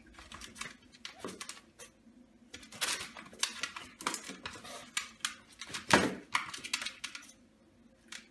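Pomeranian turning and scrabbling inside a plastic basket: irregular clicks and scrapes of claws on the plastic, with the basket knocking on the floor. The loudest is about six seconds in, and it dies down near the end.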